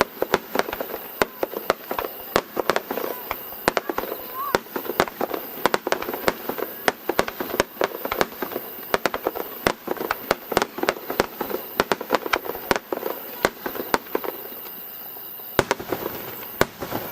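Fireworks bursting in rapid succession: a dense volley of sharp bangs and crackles, several a second, that thins out about fourteen seconds in, followed by a couple of louder single booms near the end.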